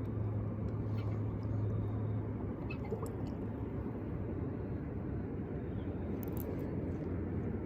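Steady rushing of water at a spillway, with a low hum over the first couple of seconds and a few faint clicks.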